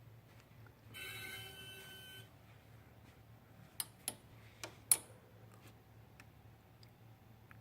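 Brief whistling tone from the engine bay of a 2013 BMW 535i with the engine off, lasting about a second, then four sharp clicks. The noise was traced to a failing A/C compressor: replacing the compressor made it stop. A low steady hum runs underneath.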